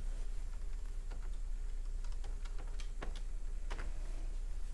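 A few faint, scattered clicks of a computer keyboard and mouse being worked, over a low steady hum.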